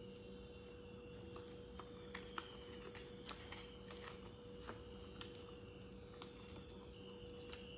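Soft eating sounds: a chapati torn apart by hand, with small clicks from chewing scattered through, over a faint steady hum.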